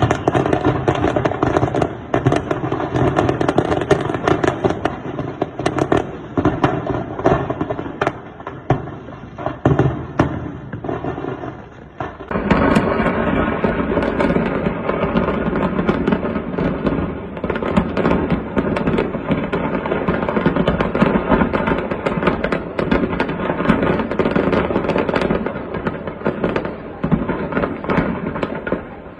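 Stored fireworks going off in a factory fire: a dense, continuous run of crackling and popping with many overlapping bangs. About twelve seconds in the sound changes abruptly and becomes fuller and denser.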